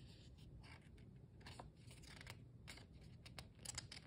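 Faint paper rustling and small clicks from a picture book's pages being handled, growing busier near the end as a page is taken up to turn.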